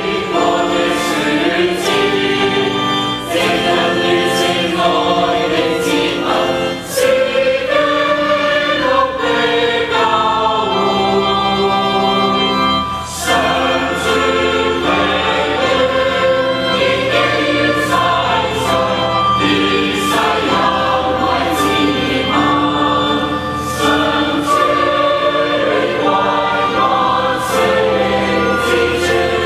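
A large crowd of young people singing a hymn together, holding long notes in a slow melody.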